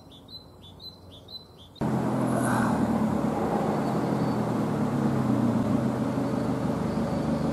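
A bird chirping repeatedly, about three short chirps a second, in otherwise quiet surroundings. Nearly two seconds in, this cuts abruptly to the steady hum of a car engine with road noise.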